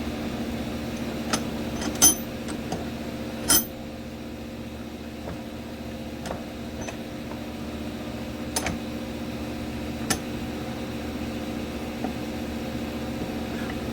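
Scattered metal clicks and clanks of a socket, new bearing and idler pulley being fitted into a bench vise. Two louder clanks come about two and three and a half seconds in, the second ringing briefly, with fainter clicks after. A steady hum runs underneath.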